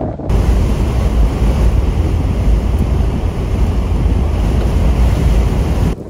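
Strong storm wind buffeting the microphone over heavy Lake Erie surf breaking on the shore: a loud, steady rush of wind and waves with a heavy low-end rumble from the wind on the mic.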